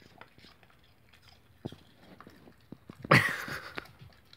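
Dog chewing crunchy food: scattered wet clicks and smacks, then one loud crunching chomp about three seconds in. She seems to be chewing with one of her jowls tucked in her mouth.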